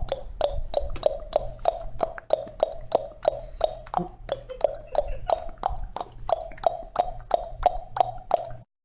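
Rapid, evenly spaced hollow knocks, about four or five a second, each with a short clear pitch, in a steady beat that cuts off suddenly near the end.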